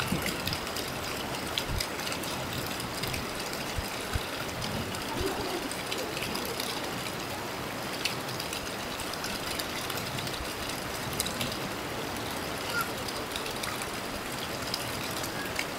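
Steady rushing of flowing water, an even hiss with a few faint scattered clicks.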